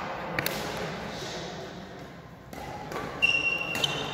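Badminton rackets striking the shuttlecock as a rally starts: a few sharp clicks near the end, the loudest with a brief high squeak, in a large sports hall.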